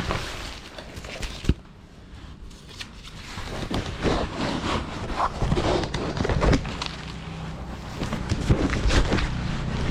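Rustling and scattered knocks and clicks from protective gear being strapped on and adjusted, straps threaded through and pulled tight.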